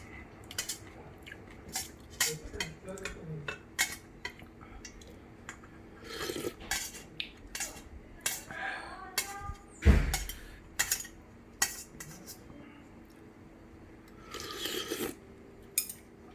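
Utensils clicking and clinking against a ramen bowl while eating, in scattered short taps, with one heavier knock about ten seconds in.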